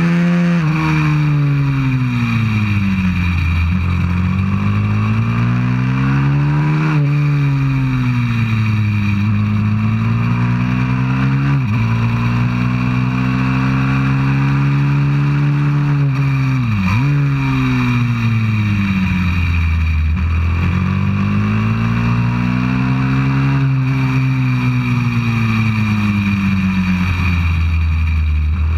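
190cc pit bike's single-cylinder four-stroke engine running at racing pace, on board. The revs climb and fall repeatedly as the bike accelerates out of corners and slows into them, with brief sharp drops in revs about twelve and seventeen seconds in.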